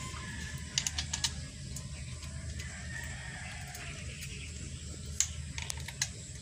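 Scattered clicks and small knocks of hard plastic and metal parts being handled as the throttle cable is fitted to a brush cutter's engine, over a steady low background hum.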